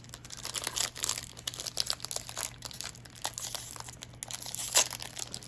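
A foil Magic: The Gathering booster pack wrapper crinkling as it is handled and torn open, with a louder crackle near the end.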